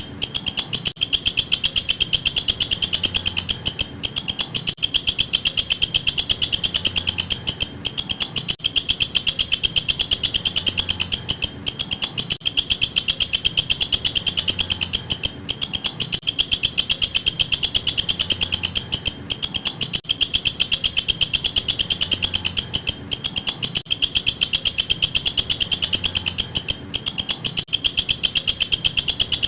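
Walang kecek insect stridulating: a continuous, rapid, high-pitched train of clicking pulses with brief breaks every few seconds.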